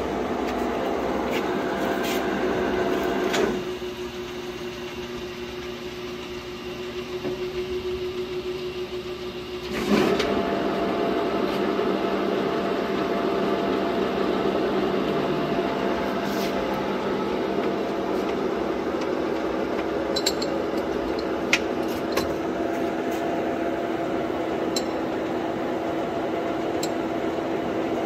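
LeBlond 24-inch sliding gap bed lathe running under power with its chuck spinning, a steady mechanical hum holding several steady pitches. About three seconds in it drops to a quieter single hum, then comes back with a clunk about ten seconds in. A few light clicks come near the end.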